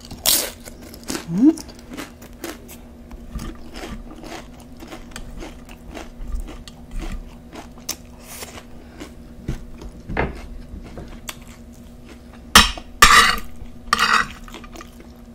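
Close-miked eating of nachos with cheese sauce: crunching and chewing tortilla chips, with small clicks and clatter of chips and utensils on the plate. A few louder crunches come near the end.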